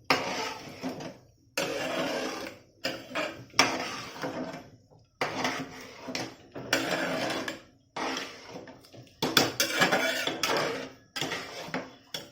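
A spoon stirring and scraping broken wheat and hot water in a metal cooking pot, in a series of separate strokes with short pauses between them.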